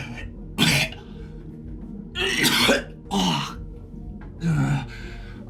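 A man coughing and retching in four harsh bursts, the longest about a second in the middle.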